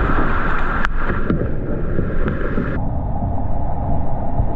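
Loud rushing whitewater with wind buffeting the microphone. The rush changes abruptly, duller, a little over halfway through.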